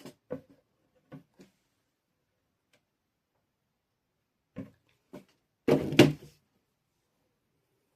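Craft materials being handled and set down on a work table: a few light knocks and taps, then a short, louder clatter about six seconds in.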